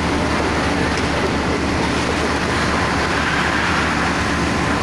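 Fire truck engine running steadily to drive its water pump, a constant drone with a broad rushing hiss over it.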